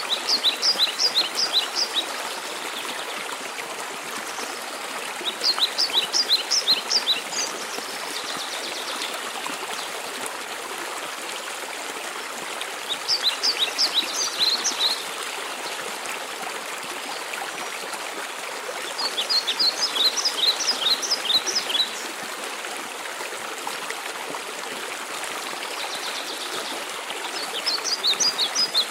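Steady rushing of a waterfall. Over it a songbird sings a short, fast run of high notes five times, every five to eight seconds.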